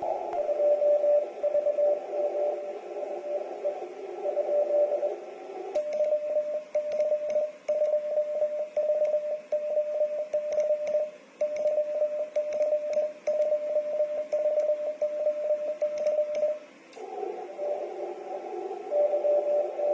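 Morse code (CW) from a portable ham radio transceiver: a single steady tone keyed in dots and dashes over a band of receiver hiss. For about ten seconds in the middle the keyed tone is cleaner, with faint clicks in time with it, like a paddle key sending. The hissy signal returns near the end.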